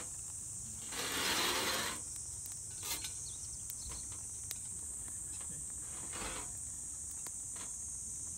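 Metal camp cookware being handled: a long scrape about a second in, then light clinks and knocks as a steel burner pad is set on a gas burner's pot supports and a skillet is placed on it. A steady high buzz of insects runs underneath.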